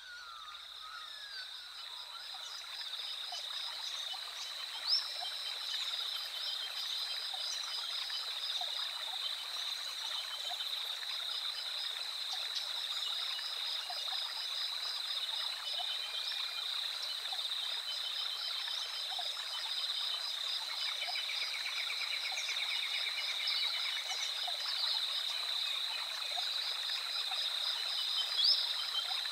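Rainforest nature recording: a dense chorus of calling frogs, a steady high pulsing trill with many scattered chirps over a soft hiss. It fades in over the first few seconds.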